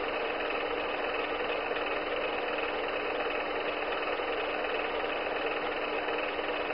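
Film projector motor and mechanism running, a steady whirr with a constant low hum and no change in level.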